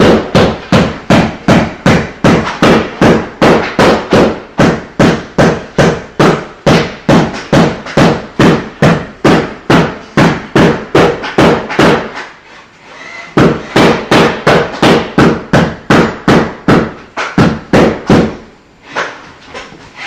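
A hammer striking again and again in a steady rhythm, about three blows a second, each with a short ring. The blows pause briefly about two-thirds of the way in, then resume and stop a couple of seconds before the end.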